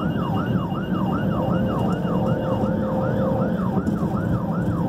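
Electronic siren of a responding fire department vehicle in yelp mode, heard from inside the cab: a fast rising-and-falling wail about three times a second, over engine and road noise.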